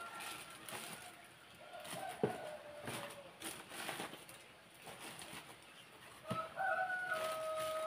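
Rooster crowing in long, held calls that step down slightly in pitch. One call ends right at the start, another comes about two seconds in, and the loudest begins about six seconds in. Underneath, plastic bags crinkle and a plastic crate knocks as vegetables are packed.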